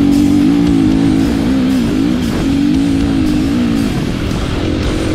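Rock music with guitar, mixed over the running single-cylinder four-stroke engine of a 2017 KTM 350 XC-F dirt bike; a tone bends up and down in pitch.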